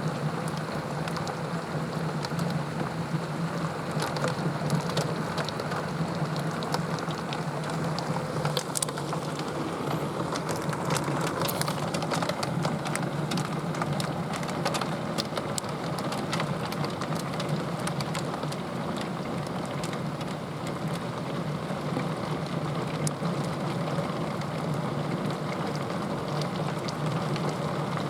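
Heavy rain pouring down steadily, peppered with many sharp ticks of individual drops.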